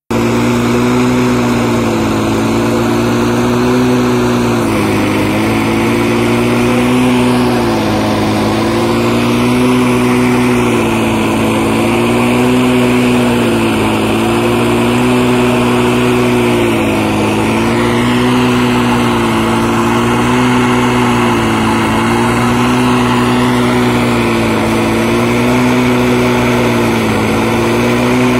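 Small engine of portable track-maintenance equipment running steadily, its pitch dipping and recovering every few seconds as if under changing load.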